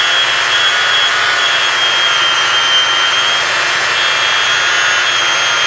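Small electric motor running steadily with a high-pitched whine, its pitch holding nearly constant with slight wobbles.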